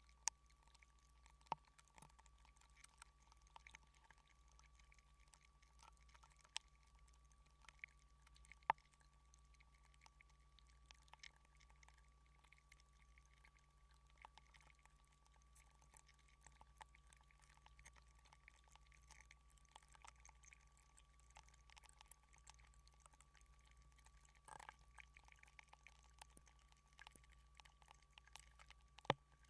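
Near silence: a faint steady hum with a thin steady tone, broken by a few short sharp clicks.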